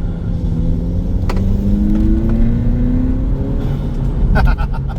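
Audi A3 1.8 TFSI turbocharged four-cylinder, fitted with a cold air intake, accelerating hard from inside the cabin: the engine note climbs steadily for about two and a half seconds, then drops away about three and a half seconds in. A single click is heard a little over a second in.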